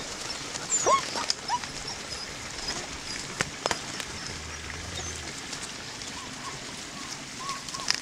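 Young puppies whimpering in short high squeaks, a couple about a second in and a run of them near the end, over a steady hiss with a few clicks and rustles.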